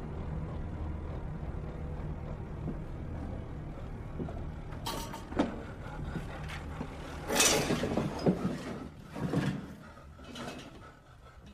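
A low steady hum, then a run of knocks and clattering, loudest about seven to eight seconds in, as a shotgun is grabbed and handled among loose shells on wooden floorboards.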